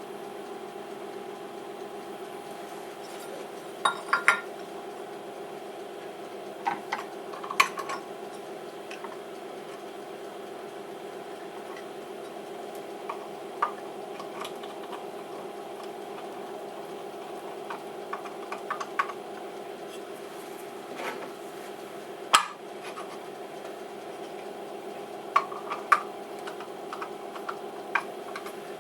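Scattered metallic clinks and knocks of metal parts and tools being handled at a CNC milling machine, a few sharp ones louder than the rest, over a steady hum from the idle machine.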